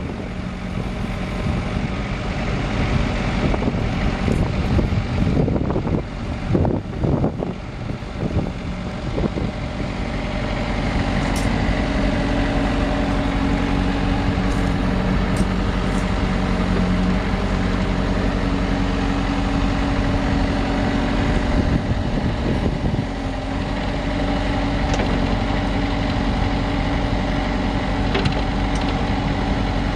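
A Daewoo four-cylinder diesel engine of a 1995 Daewoo DH50 mini excavator running with a steady hum. For the first nine seconds or so wind buffets the microphone unevenly.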